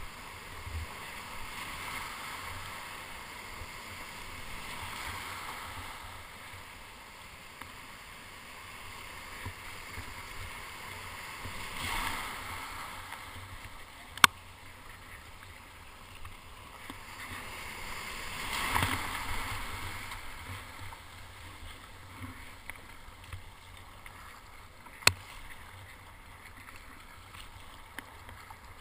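Surf whitewater washing and hissing around a kayak being paddled out through breaking waves, with two louder rushes of water about twelve and nineteen seconds in. Two sharp knocks stand out, about fourteen and twenty-five seconds in.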